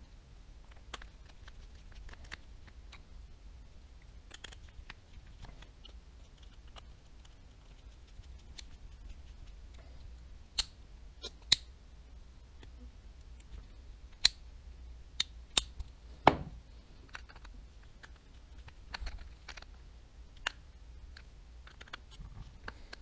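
Small clicks, taps and light scraping of Daiwa Tatula 100 TWS baitcasting reel parts and small tools being handled on a work surface. A cluster of sharper clicks comes midway, including one louder knock.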